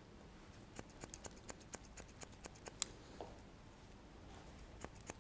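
Hair-cutting scissors snipping short hair in quick, faint clicks, about five snips a second. A run of about a dozen snips starts about a second in, then a pause, then more snips near the end.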